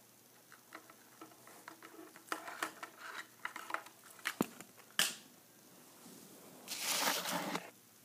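Small plastic Shopkins toys being pecked and knocked about by a cockatiel on a wooden table: a run of light clicks and taps with two sharper clicks in the middle. A rustle lasting about a second near the end.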